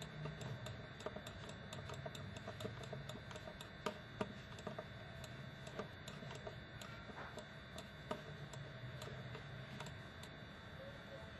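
Light, irregular clicking of a computer mouse, a few clicks a second with a couple of louder ones, over a faint low hum.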